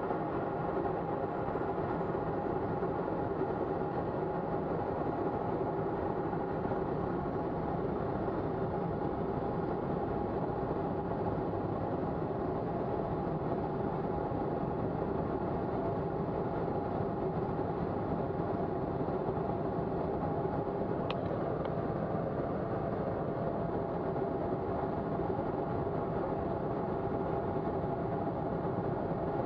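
Steady in-flight cockpit noise of a Colomban Cri-Cri jet: a constant drone of airflow and engine with a few steady tones running through it. A small click sounds about two-thirds of the way through.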